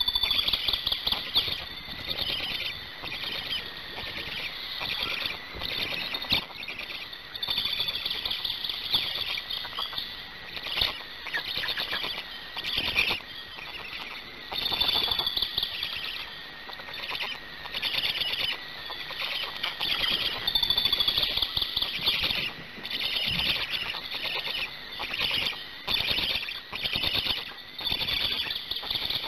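Black stork chicks giving rapid, high-pitched squeaky begging calls in repeated bursts about a second long, while the adult stands over them at the nest.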